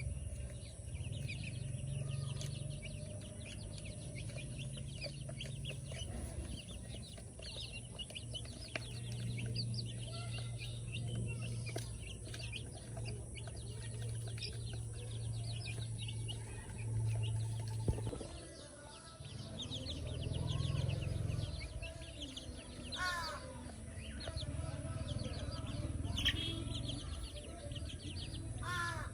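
Birds and chickens in a farmyard: many quick, high chirps, with chickens clucking, over a low steady hum. A few harsher calls come near the end.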